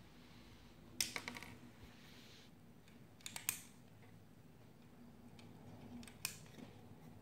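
LEGO plastic pieces clicking and clacking as they are handled: a cluster of sharp clicks about a second in, a couple more around three and a half seconds, and a single click just past six seconds.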